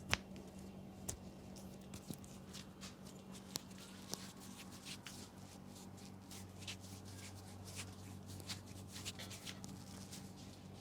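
Hands working over a person's head and hair in a head massage: soft rustling and rubbing with scattered sharp clicks and taps, the sharpest just at the start, over a low steady hum.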